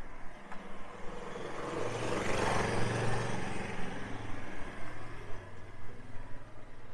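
A road vehicle driving past, its engine and tyre noise swelling to a peak about two and a half seconds in and then fading away.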